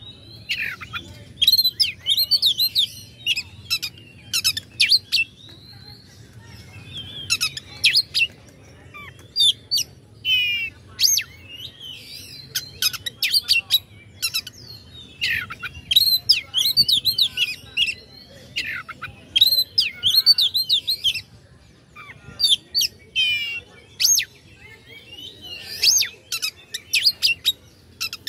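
Oriental magpie-robin (kacer) singing an agitated, fast full song: varied whistles, chattering phrases and sharp notes in bursts a second or two long, with short pauses between them. It is the kind of aggressive song keepers play to a caged bird to provoke it into answering.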